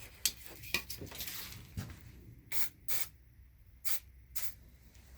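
WD-40 aerosol can sprayed in several short hissing squirts, penetrating oil going onto a seized throttle cable junction block to free it.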